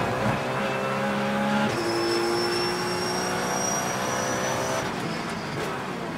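Porsche 911 GT3 Cup's naturally aspirated flat-six heard from inside the cockpit at full throttle. Its pitch climbs steadily, with one upshift about two seconds in. Near the end the car comes off the throttle and brakes, with a few sharp cracks as it downshifts.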